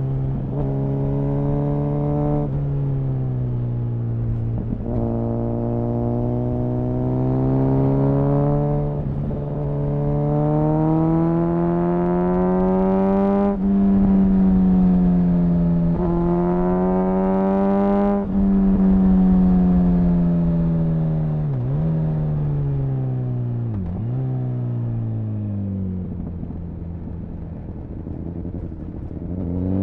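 2004 Honda CBR1000RR Fireblade's inline-four engine and exhaust under hard riding, the revs rising and falling with the throttle. There are two brief breaks in the sound near the middle. Later the revs drop and run low for a few seconds, then climb again at the end.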